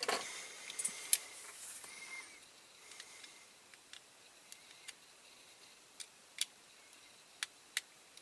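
Scattered light metallic clicks and taps from a diecast toy car and small tools being handled, about ten sharp ones spread over several seconds, with a brief rustle near the start.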